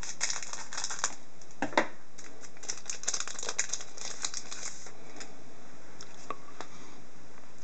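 Foil wrapper of a hockey trading-card pack being torn open and crinkled by hand: a quick run of sharp crackles for the first five seconds or so, then a few scattered clicks.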